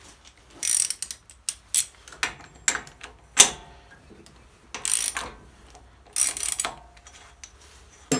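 Ratchet wrench clicking in several short runs, with sharp metal knocks between, as a Briggs & Stratton Vanguard V-twin's crankshaft is worked round by hand at the flywheel nut. The flywheel with its modified starter ring gear is still stuck and will not turn freely.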